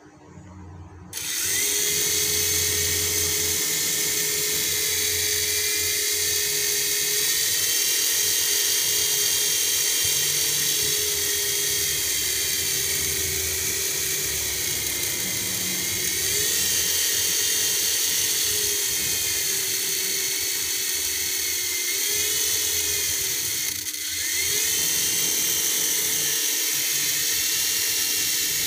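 Toy RC helicopter's small electric motors and rotor blades whirring, spun up from the remote about a second in while the helicopter is held in the hand. The whine rises and falls in pitch as the throttle is moved, dipping once briefly before spinning back up.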